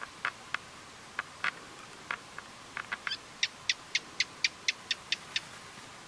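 Short sharp animal clicks or chirps over a faint hiss: a few scattered ones at first, then about halfway through a quick, regular run of about nine louder, higher notes, about four a second.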